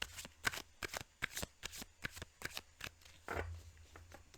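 A deck of oracle cards being shuffled by hand: a quick run of short, sharp card strokes, several a second, then a single heavier thump about three seconds in.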